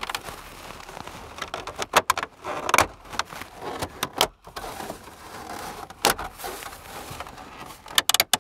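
Hard plastic dash parts being handled: irregular clicks, knocks and rubbing as the instrument-cluster bezel of a 1999 Dodge Ram is pulled back and the ABS dash cap is pressed down along the dash for a test fit.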